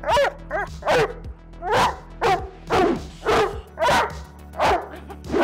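Labrador retriever barking repeatedly, about two barks a second, over background music.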